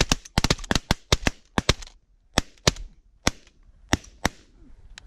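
A volley of shotgun fire from several hunters shooting at snow geese: a dense run of about a dozen shots in the first two seconds, then single shots about half a second apart that thin out and stop near the end.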